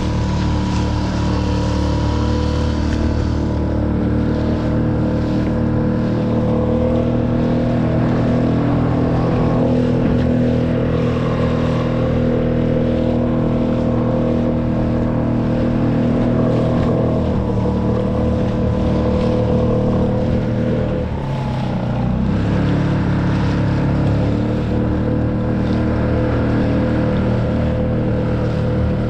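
Small outboard motor pushing a skiff along at trolling speed, running steadily, with water splashing off the hull. About 21 seconds in, the engine note dips briefly and then settles at a slightly different pitch, as the throttle is eased.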